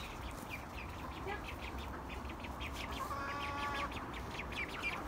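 Ducklings peeping, a rapid run of short high peeps several times a second, with one longer held call about three seconds in.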